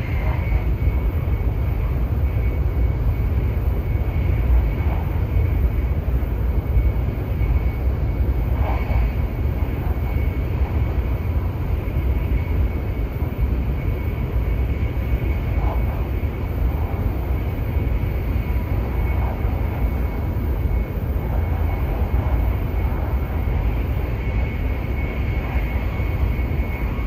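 Cabin noise of a W7 series shinkansen in motion: a steady low rumble with a faint, steady high-pitched tone above it.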